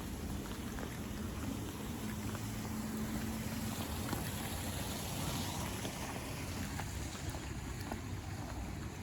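Steady rain and wind noise on the microphone, with a vehicle passing on the wet road: a low engine hum at first, then tyre hiss swelling about five seconds in and fading.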